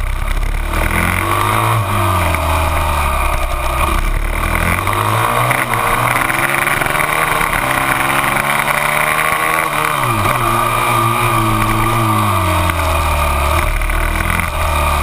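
Onboard sound of a TM 450 SMX supermoto's single-cylinder four-stroke engine at racing pace, its note climbing and dropping again and again as it accelerates, shifts and brakes for corners. Heavy wind rush over the mounted camera runs under it.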